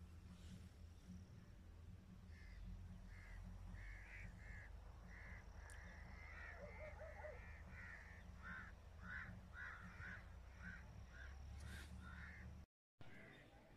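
Faint crows cawing over and over, the calls coming thicker and faster in the second half, over a low steady rumble. The sound cuts out for a moment near the end.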